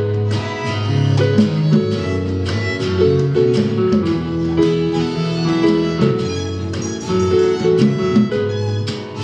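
Live band playing an instrumental passage between sung verses, with guitar over sustained low notes and no singing.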